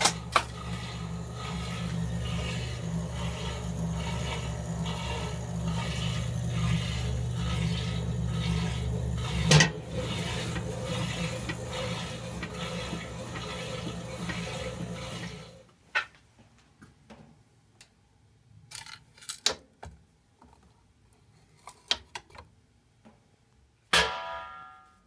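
Vintage Speed Queen top-loading automatic washer running: a steady motor hum under rushing, splashing water in the tub for about fifteen seconds, then it stops suddenly. After that there are a few faint clicks and knocks, and a sharp click with a short ring near the end.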